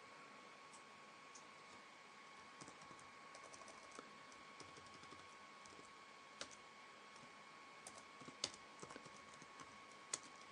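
Faint, irregular keystrokes on a computer keyboard, with a few sharper clicks in the second half, over a faint steady tone.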